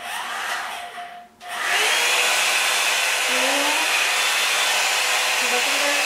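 Revlon One-Step hair dryer and volumizer hot-air brush running. After a quieter first second and a brief break, it comes on loud about a second and a half in and blows steadily, a rush of air with a high motor whine.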